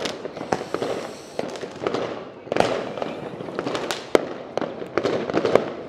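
Many fireworks going off at once all around: a dense, irregular run of overlapping bangs and pops over a constant crackling din.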